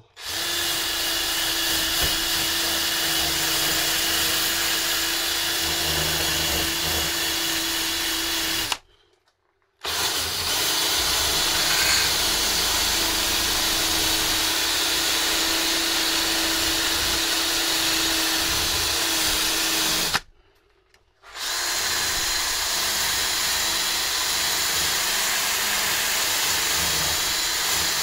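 Cordless drill spinning a nylon abrasive brush against the steel shaft of a Piaggio Ape 50 starter motor to clean its surface: a steady motor whir with a scrubbing hiss. It runs in three long stretches, stopping briefly about 9 seconds and 21 seconds in.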